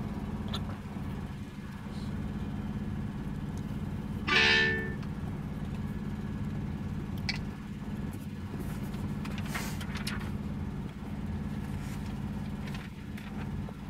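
Semi-truck's diesel engine idling steadily, heard from inside the cab, with a brief loud pitched blast about four seconds in.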